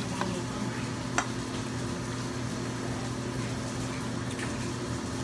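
Steady restaurant background hum and hiss, with a single light tap about a second in.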